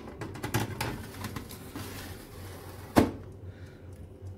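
Metal baking tray scraping and clattering as it is slid onto an oven rack, then one sharp knock about three seconds in as it settles into place.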